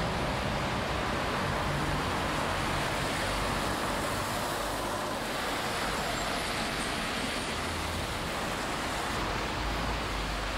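Street traffic on a wet road: a steady hiss of tyres on the rain-soaked street, with the low engine rumble of passing double-decker buses and cars swelling now and then.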